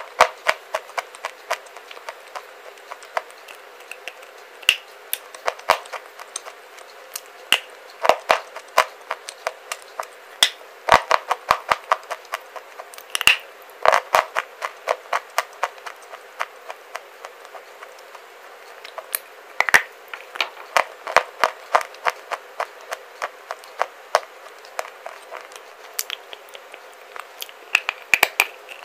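Close-miked crunching of a white clay bar being bitten and chewed: clusters of sharp cracks and crackles with short pauses between them.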